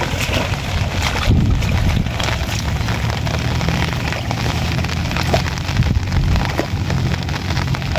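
Steady rain falling on water and vegetation, a dense patter of drops, with a low rumble of wind on the microphone underneath.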